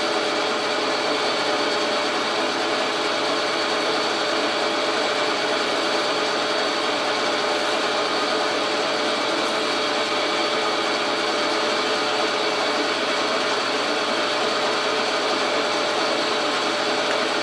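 Logan metal lathe running steadily while taking a cut on a 2-inch aluminum rod, an even hum with a faint whine of several steady tones from the motor and gearing.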